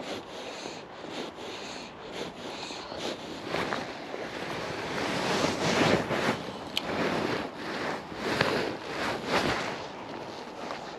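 Jacket sleeve rubbing and brushing against the camera microphone: a rough, irregular scraping rustle that grows louder through the middle and eases off near the end.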